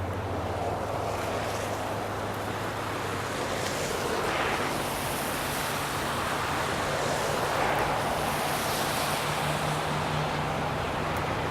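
Snowstorm ambience: a steady rushing of wind, with a low vehicle engine hum underneath that steps up in pitch about three seconds in.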